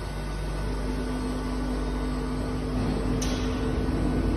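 DMG MORI DMC 80 U duoBLOCK five-axis machining center running behind its closed enclosure, with coolant spraying: a steady machine hum, a low steady tone that sets in under a second in, and a short hiss about three seconds in.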